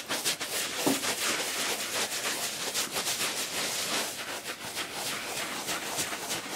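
Twist sponge rubbed back and forth over short afro hair, a scratchy brushing in quick repeated strokes, a few a second.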